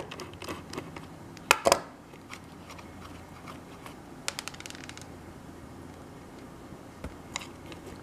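Small metal clicks and scrapes as a screwdriver and fingers work old wiring off the terminals of a rusty hot wire relay. Two sharp clicks come about a second and a half in, followed by scattered light ticks.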